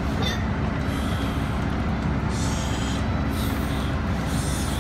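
Steady engine and road rumble heard from inside a city bus, with three short hisses in the second half.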